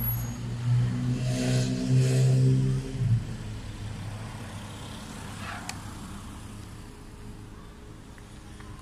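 A motor vehicle passes close by with its engine running at a steady pitch, loud for about three seconds and then fading away.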